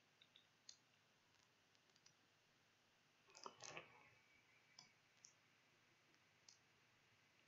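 Faint computer keyboard keystrokes over near silence: a few scattered taps, with a small cluster about three and a half seconds in.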